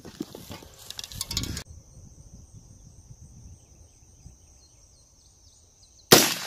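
A single AR-15 rifle shot in .223/5.56 cracks out near the end. Before it there is rustling for about the first second and a half, then steady insect buzzing.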